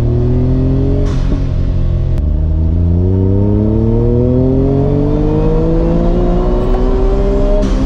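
Autozam AZ-1's small mid-mounted turbocharged three-cylinder engine accelerating, heard from inside the cabin: the pitch rises, breaks for a gear change about a second or two in, then climbs steadily through a long pull.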